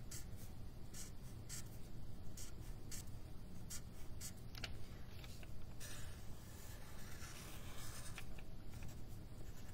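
Felt-tip marker scratching on paper in many short, quick strokes, about two a second, as teeth are inked in, over a faint low room hum.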